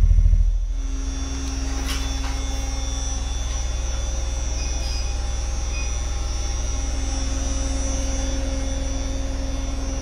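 Four 8-inch B2 Audio subwoofers in a ported under-seat enclosure playing a steady deep bass tone. It is louder at first and drops to a lower steady level about half a second in.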